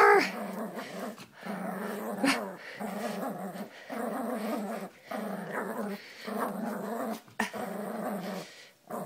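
Chug (chihuahua-pug mix) puppy growling in play while tugging on a sock: a string of growls, each about a second long, with short breaks between.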